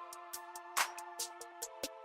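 Background music: a drum beat over sustained chords, with a loud snare-like hit a little under a second in.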